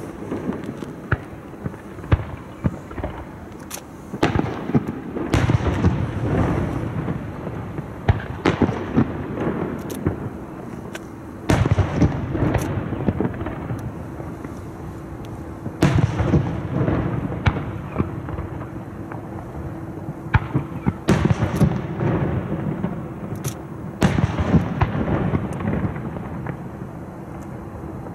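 Aerial fireworks going off: a run of sharp bangs and crackles, with heavier rumbling volleys that set in every few seconds and die away.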